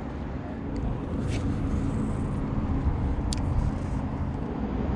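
Steady low engine drone running throughout, with two faint clicks about one and three seconds in.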